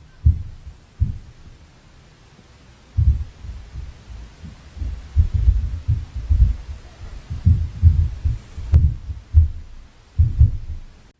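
Dull, low thuds from the upstairs apartment carried through the ceiling: inter-floor impact noise like heavy footsteps. Two thumps come near the start, then an irregular, rapid run of them from about three seconds in.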